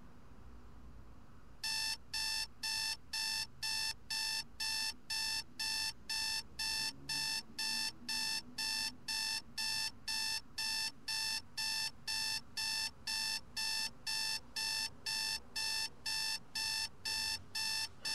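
Sony digital clock radio's alarm beeping: short, evenly spaced beeps, a little under two a second, starting about two seconds in and keeping up steadily.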